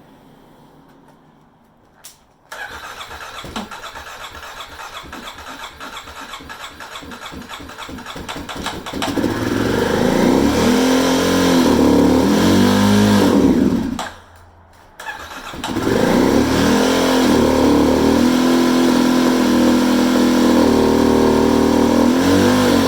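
Kawasaki KLX250's single-cylinder four-stroke engine is cranked by the starter for several seconds. It catches about nine seconds in and runs with its pitch rising and falling as the throttle is worked. It cuts out for a moment near fourteen seconds, then fires again and keeps running. This is a hard start after storage, helped along by gasoline squirted into the carburetor with the enrichment valve on.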